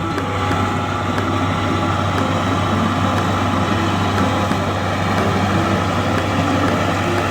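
Heavy farm machinery running steadily under load: a tractor-driven straw reaper (bhusa machine) and a combine harvester cutting wheat together, a constant engine hum with threshing and cutting noise over it.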